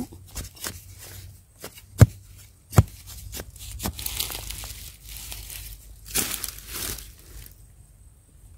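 Metal digging blade striking and scraping into dry, crumbly soil while wild yam tubers are dug out, with sharp knocks about two and three seconds in, then a longer stretch of soil crumbling and scraping.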